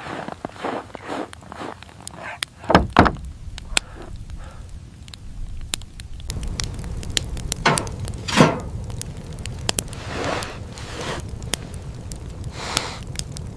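Footsteps crunching through snow, with two heavy thumps about three seconds in.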